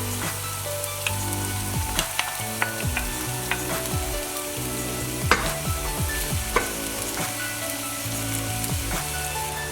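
Onions frying and sizzling in a pan while being stirred, with a few sharp knocks of the utensil against the pan.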